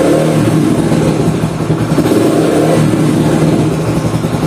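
Yamaha YBR 125G's single-cylinder four-stroke engine running at idle, holding steady on its own, with slight rises and falls in pitch.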